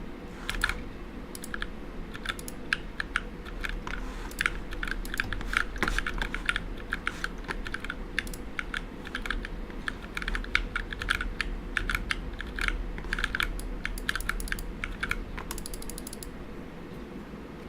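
Typing on a mechanical keyboard with Cherry MX "Ergo" Clear switches: a steady, irregular run of keystroke clicks. A quick flurry of rapid presses comes near the end, then the typing thins out.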